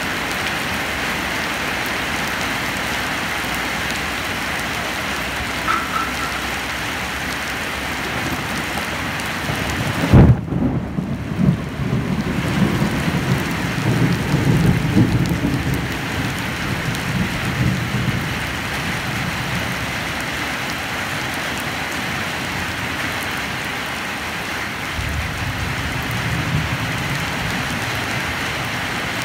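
Steady rain falling on wet ground and leaves. About ten seconds in, a sharp thunderclap is followed by several seconds of rolling thunder, and a fainter rumble comes near the end.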